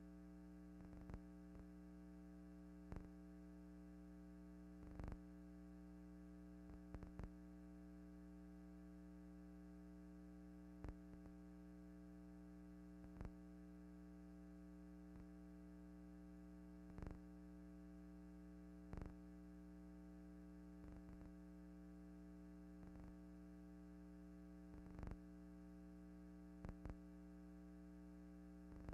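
Near silence: a steady low electrical hum with a short faint click every second or two.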